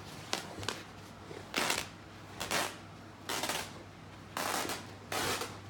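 Two Great Danes tugging a tattered cloth blanket between them: a run of short, scratchy bursts of noise about once a second, with a couple of sharp clicks near the start.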